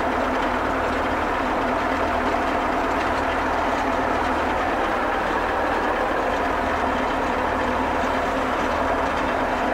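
Diesel engine of a Fortschritt E303 self-propelled mower running steadily, heard from inside the cab.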